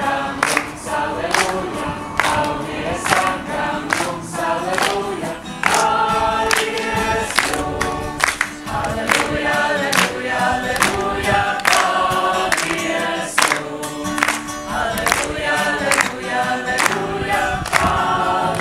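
A group singing together, with hand-clapping in a steady beat of about two to three claps a second.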